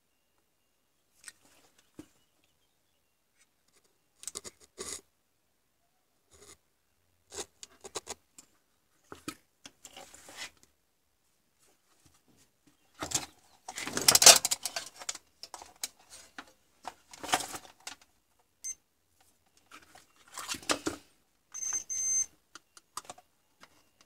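Intermittent bench handling noises: short clicks, taps and scrapes as soldering tools and a monitor power-supply circuit board are picked up and moved, with the loudest, longest run of scraping and rustling about a quarter past the middle.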